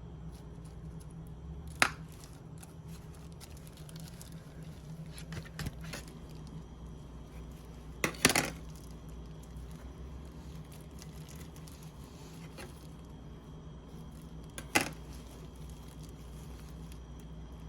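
Three sharp clinks of metal kitchenware or dishes being handled, about two seconds in, a short cluster at the midpoint, and near the end, with a few fainter knocks between, over a steady low hum.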